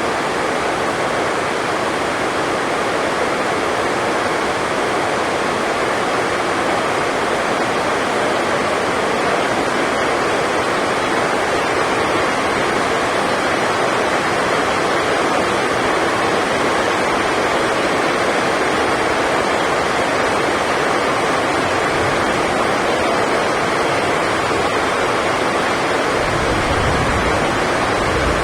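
Heavy rain drumming steadily on the sports hall's roof, an even hiss with no break, and a low rumble coming in near the end.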